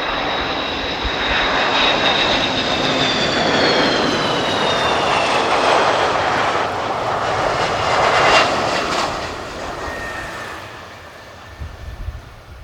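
Boeing KC-135R tanker's four turbofan engines passing close while landing: a loud roar with a high whine that falls in pitch as it goes by, loudest about eight seconds in, then fading.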